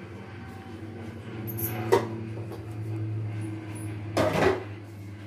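Household background with a steady low hum, a sharp click about two seconds in, and a louder brief knock-like noise a little after four seconds.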